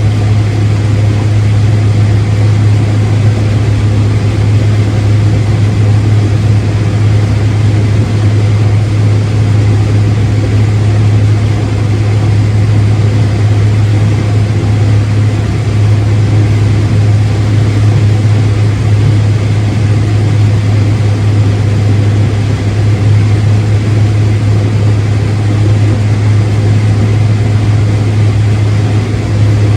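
Heavy farm machinery engine running steadily, a loud, unchanging low drone.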